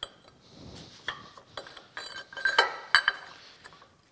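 Heavy cast iron and steel parts of an old cane mill clinking and knocking against each other as the rollers and shafts are fitted back into the frame by hand. A string of sharp ringing metal clinks, loudest two and a half to three seconds in.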